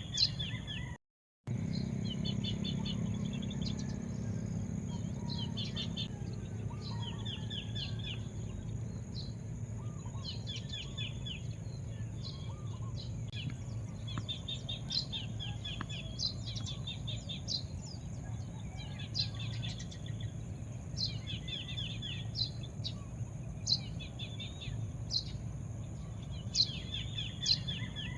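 Songbirds chirping: short trilled phrases repeat every second or two over a steady low rumble. The sound cuts out completely for a moment about a second in.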